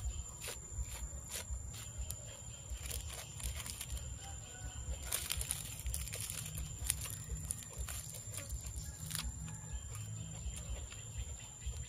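Eating up close: chewing a mouthful of lettuce and herbs wrapped around raw beef, with scattered small crisp clicks, and fresh lettuce leaves rustling as another wrap is folded and dipped in the sauce.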